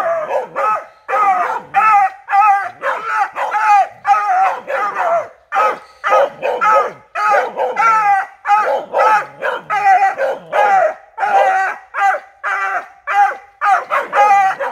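Hunting hounds barking and baying in a rapid, unbroken string, about two barks a second, at a wire cage trap: the bay of trained hounds at cornered game.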